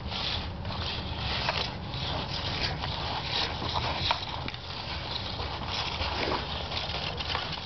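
Irregular scraping and crunching on icy, crusty snow: a small child's skis shuffling forward and ski-pole tips striking the ice, over a steady low rumble.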